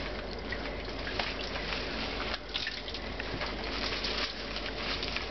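Steady running water in a bathtub while a ferret is washed by hand, with small splashes and drips.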